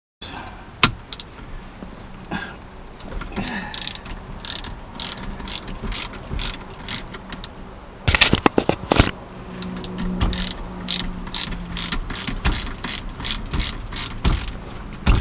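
Mechanical ratcheting clicks from hand-tool work on car seat trim: short, evenly spaced clicks about two to three a second, with a quick flurry of clicks about eight seconds in and a brief low hum a couple of seconds later.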